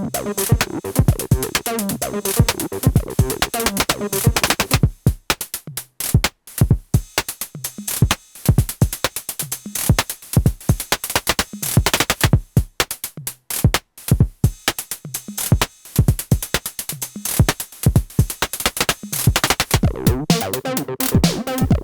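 Electronic acid-techno jam at 128 bpm from a Moog DFAM, Behringer CAT and Elektron Syntakt: a drum-machine pattern with a synth line. The synth line drops out about four seconds in, leaving mostly the percussion, and comes back near the end.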